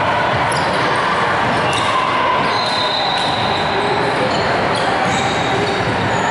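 Balls bouncing on a hardwood gym floor amid the steady, echoing din of a busy gymnasium.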